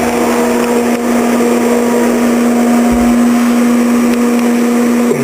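CT520D combination TIG, stick and plasma-cutting machine running in plasma-cut mode, a steady hum with a rushing noise, while its torch is triggered but fails to strike an arc: a fault in the machine. A brief low thud about three seconds in.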